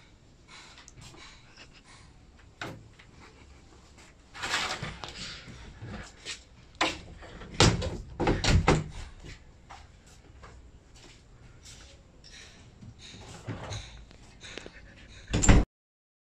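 Scattered knocks and bumps over a quiet background, with a louder cluster about halfway through and a sharp, loud knock near the end, after which the sound cuts off suddenly to silence.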